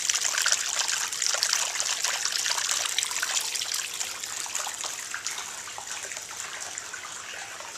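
Hot spring water trickling and splashing into a rock bath, a steady crackly patter that grows fainter over the second half.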